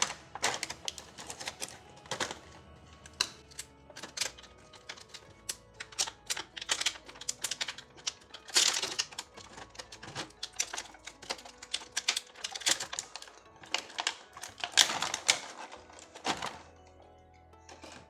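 Small plastic toy kitchen pieces being handled, with irregular clicks, taps and clatters, loudest about halfway through and again near the end, over soft background music.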